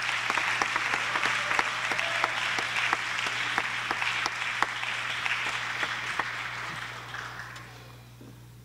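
Congregation applauding with dense clapping, which dies away near the end.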